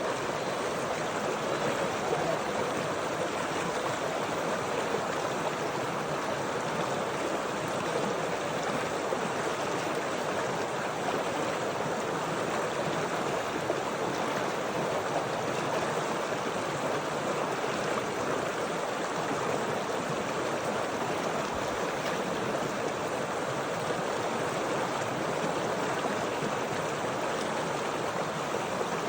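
Stream water flowing, a steady, even rush of running water.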